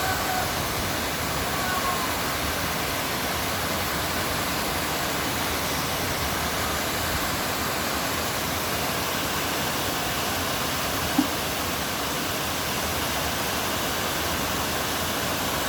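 Glacial meltwater waterfall pouring, a steady, even rush of water, with one brief sharp tick about eleven seconds in.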